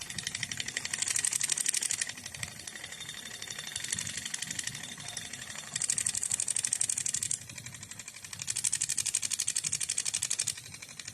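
Rapid mechanical rattle of a DermaStar Hydrolight needling handpiece running. It grows louder in stretches of about two seconds, three times, as the head is pressed to one spot on the skin and then moved.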